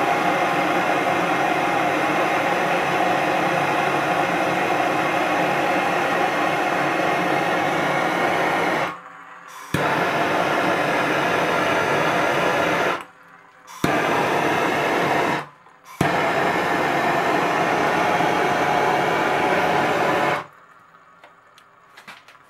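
Hose-fed gas soldering torch hissing steadily as its flame heats a copper elbow and brass shower valve joint for sweating solder. The hiss breaks off briefly three times, then stops about 20 seconds in.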